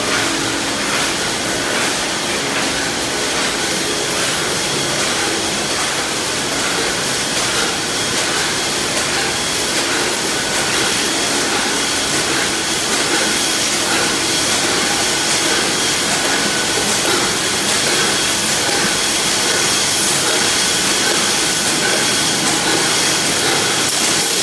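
Steady din of a tin can making line running: machines and conveyors hissing and rattling, with a stream of small clicks and a faint steady whine.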